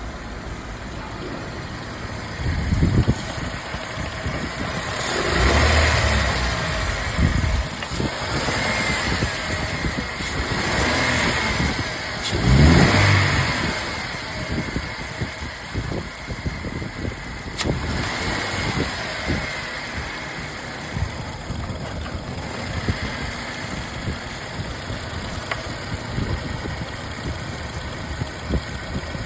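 Car engine idling, blipped up in revs a few times, the clearest rev about thirteen seconds in, then settling back to idle.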